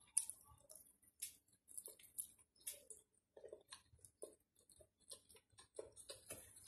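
Faint, irregular small clicks and wet mouth smacks of a person chewing and slurping stir-fried rice noodles (bihon guisado).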